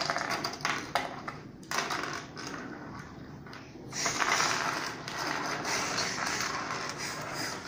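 LEGO plastic pieces being handled and moved on a tabletop: a few clicks and short scrapes in the first two seconds, then from about four seconds in a longer spell of rattling and scraping.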